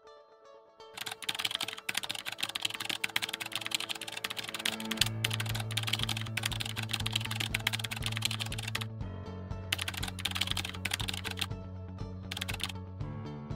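Rapid keyboard typing clicks, an on-screen typing sound effect with a few short pauses, over background music with low held notes that change every few seconds.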